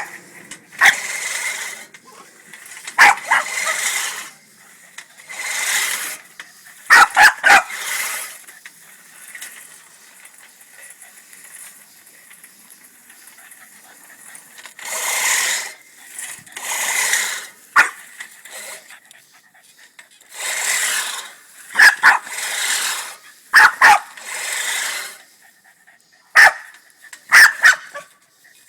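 A push lawnmower being shoved in short strokes, its blades whirring in repeated bursts of about a second. A Boston terrier barks and whimpers at it, with sharp barks a few times.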